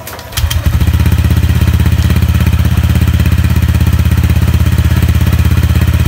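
Honda Click 125i scooter's 125 cc single-cylinder four-stroke engine starting about half a second in, then settling into a loud, steady idle with an even, rapid pulse through a freshly fitted aftermarket MT8 racing exhaust with a titanium tip. It is being left to idle without revving after the new pipe was fitted.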